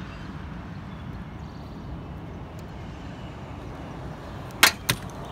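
Two sharp clicks about a quarter of a second apart, near the end: the new hood gas strut's end fitting snapping onto its ball stud on the hood. Steady outdoor background noise throughout.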